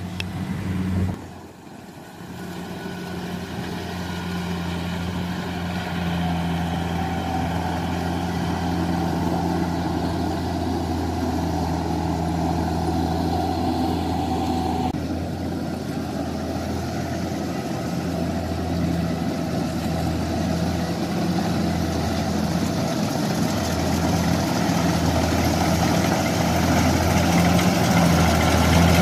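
Diesel engine of a rice combine harvester running steadily while it works in deep, waterlogged paddy mud, gradually getting louder.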